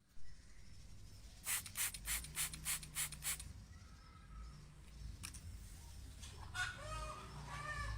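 Hand spray bottle squirting water on a bird being bathed, about seven quick hissing squirts at roughly three a second, then the bird gives a few short chirps near the end.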